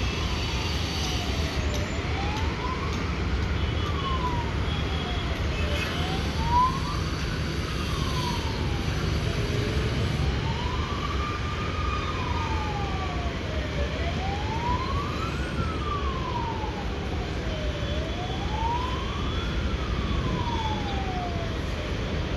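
A siren wailing, slowly rising and falling in pitch about once every four seconds, over a steady low rumble.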